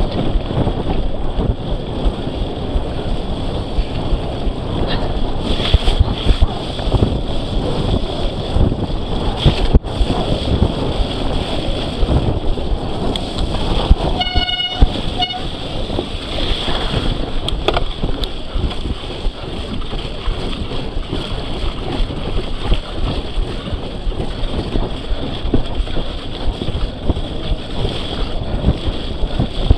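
Wind buffeting the microphone of a camera riding along on a mountain bike at speed, with a constant jumble of small bumps and knocks from the bike over the trail. A short electronic beep sounds about halfway through.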